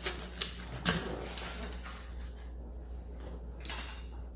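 A metal utensil tapping and scraping on a metal baking tray: a couple of sharp clicks in the first second, then only a low steady hum.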